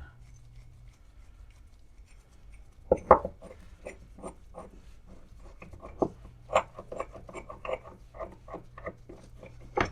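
Small metal drill-press vise being worked by hand after cleaning: its lead screw turned and the sliding jaw moved, giving an irregular run of small clicks and rubbing. Two louder clacks come about three seconds in.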